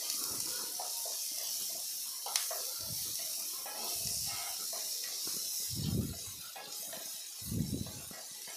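Chopped onions, ginger and garlic sizzling in oil in a nonstick kadai with a steady hiss, stirred with a wooden spatula that scrapes and knocks softly against the pan several times.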